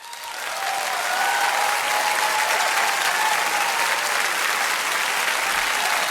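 Crowd applause, most likely an added sound effect, swelling over the first second and then holding steady as dense, even clapping.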